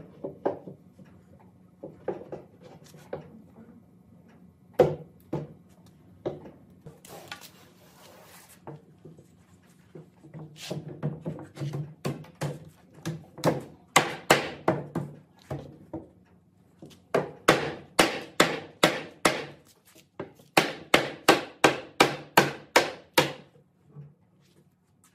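Hammering on wood: a few scattered knocks at first, then from about ten seconds in, runs of steady blows at about three to four a second. A short hiss comes about seven seconds in.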